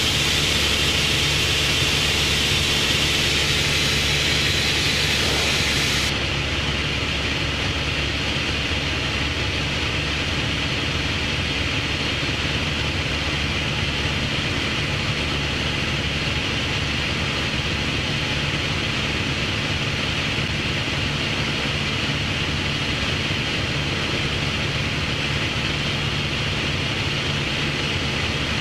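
Steady cockpit drone of a light aircraft in flight: engine and propeller hum with airflow hiss. About six seconds in, the highest hiss cuts off abruptly and the drone becomes slightly quieter.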